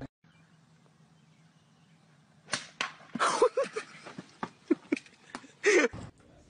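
A golf club swung hard, a swish and strike about two and a half seconds in, followed by a string of short shouts and laughs.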